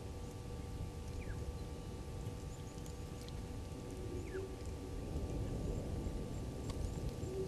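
Outdoor bush ambience: a steady low rumble with a few faint, short downward chirps and scattered faint high ticks.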